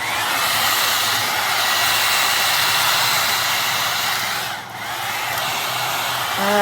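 Aima Beauty 1100-watt hot air brush (hair dryer brush) switching on and blowing with a steady rush of air. The sound dips briefly about four and a half seconds in, then carries on slightly quieter.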